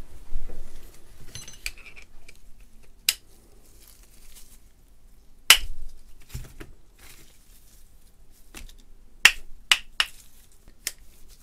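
Sharp metallic clicks and clinks from a small steel three-jaw gear puller and socket wrench being handled and worked on a shaft, with quiet handling noise between. The clicks are scattered, with three in quick succession near the end.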